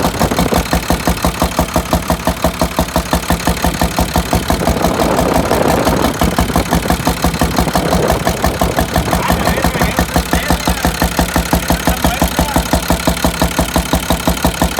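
International DT466 inline-six diesel idling with its valve cover off, with an even, rhythmic knock of about four to five beats a second. The owner believes the knock comes from cylinder 5 and suspects a bent valve.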